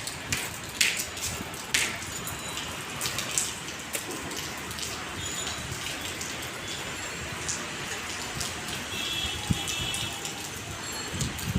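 Rain falling steadily, with individual drops striking a surface in sharp taps that are most frequent in the first couple of seconds.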